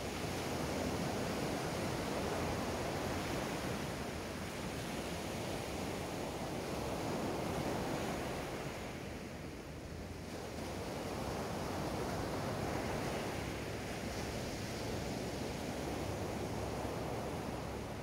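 Small sea waves breaking and washing up a sandy beach: a continuous rush of surf that swells and eases every few seconds, easing off briefly about halfway through.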